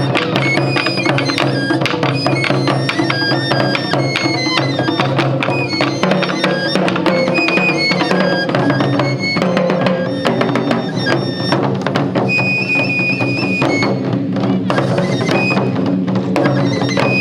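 Japanese taiko drum ensemble playing a fast, dense rhythm, with a high flute carrying a melody of held, stepped notes over the drums.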